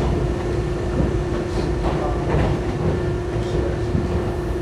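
R62A subway car running on the rails: a steady low rumble under a constant hum, with scattered clicks and clacks.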